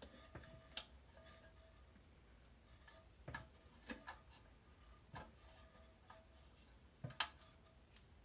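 Faint, irregular clicks and taps of plastic toilet-tank parts being handled and fitted inside a porcelain tank, as a refill tube is clipped onto a flush valve's overflow pipe. About eight in all, scattered over a near-silent background.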